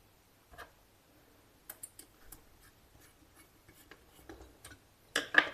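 Light clicks and scratching as a wire end is fitted to the switch terminal of a plastic 5-in-1 power plug board, with a louder rattle of clicks near the end.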